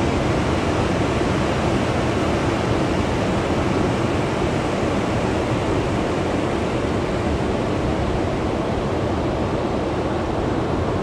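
Ocean surf breaking on a sandy beach: a steady, even wash of noise with no single wave crash standing out.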